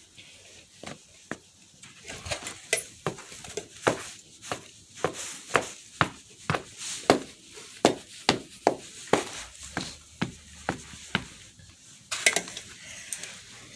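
Footsteps crunching through deep snow at a steady walking pace, about two steps a second, stopping about two seconds before the end.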